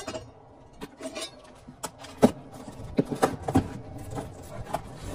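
Metal aerosol spray-paint cans knocking and clinking against each other as they are handled and lifted out of a cardboard box. They make a series of irregular sharp knocks, the loudest a little over two seconds in.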